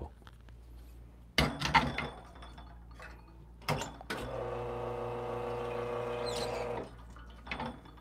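Espresso portafilter clattering against the machine's group head, with a sharp click a little later. Then the Lelit espresso machine's pump hums steadily for close to three seconds and cuts off.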